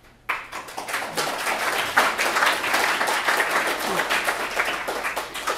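Audience applauding, starting suddenly just after the start and tailing off near the end.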